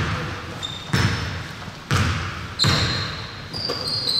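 Basketball being dribbled on a hardwood gym floor, a bounce about once a second, with a few high sneaker squeaks in the second half.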